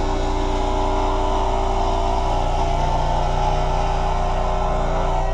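Scroll saw running steadily, its reciprocating blade cutting through a layered hardwood blank.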